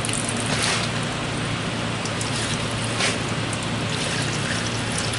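Water poured from a plastic bucket into a floor drain, splashing and trickling, over a steady rushing noise with a low hum.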